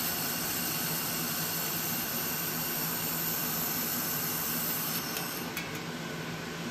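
DenaliWeld Jet 2000 W air-cooled handheld laser welder welding an outside corner on 18-gauge stainless sheet: a steady high hiss that stops about five seconds in, over a steady low hum, with a few light clicks near the end.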